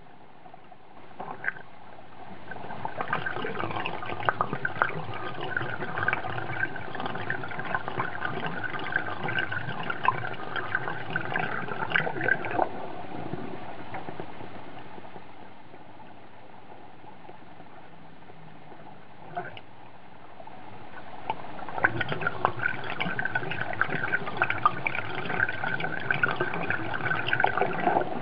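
Water gurgling and splashing as an aquarium overflow drain pipe empties into the sump. It is louder in two long spells, with a quieter stretch in the middle.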